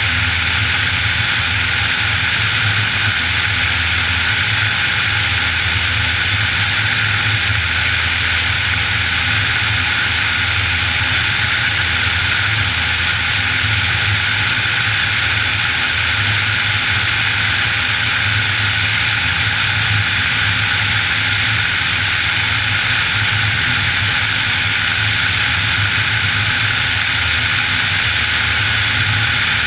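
Piper Warrior in flight: its four-cylinder Lycoming piston engine and propeller run with a steady low drone under an even rush of air noise. There are no changes in power.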